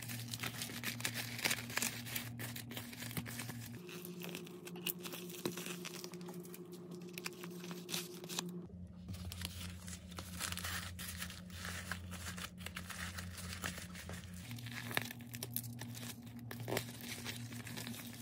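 Plastic packaging and a pink poly bubble mailer crinkling and rustling in the hands as a small jewelry order is slid into the mailer, a dense run of small irregular crackles.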